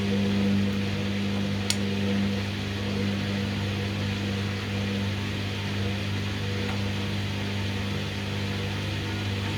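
Hoover washing machine running with a steady motor hum as the drum struggles to get up to spin speed, with a single sharp click about a second and a half in.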